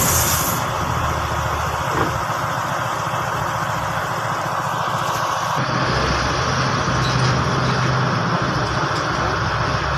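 Hino P11C inline-six diesel engine running steadily at idle, now starting and running after its no-start fault was fixed. A little past halfway the sound turns duller and deeper.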